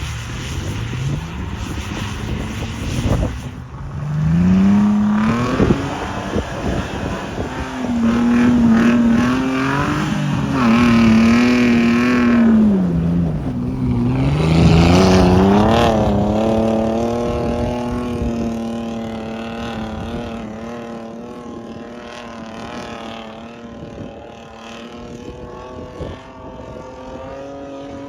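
Off-road vehicle engine revving hard, its pitch climbing, wavering and dropping several times, then running at one steady pitch while growing fainter.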